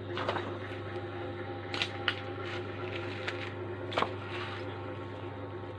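A steady machine hum with a few short sharp clicks or knocks, two close together about two seconds in and a louder one about four seconds in.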